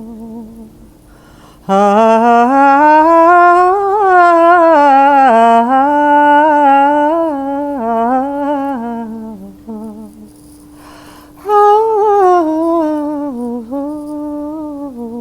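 A woman's voice humming a slow, wandering wordless melody in two long gliding phrases over a steady held drone note, with a short breath between the phrases.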